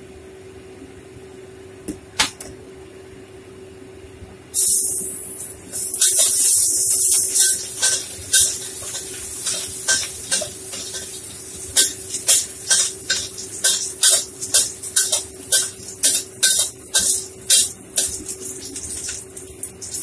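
Hot cooking oil in a steel wok bursts into loud sizzling about four and a half seconds in as potatoes go in to fry, and keeps sizzling. Over it a metal ladle knocks and scrapes against the wok, about one to two strokes a second, with a steady low hum underneath.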